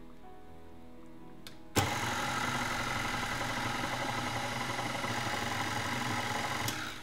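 Electric stand mixer switched on about two seconds in, its motor running steadily while the flat beater mixes flour and liquid into cake batter in a glass bowl, then stopping shortly before the end.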